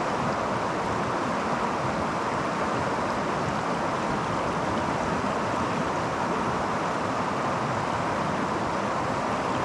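Creek water rushing steadily over rocks, a constant even rush with no breaks.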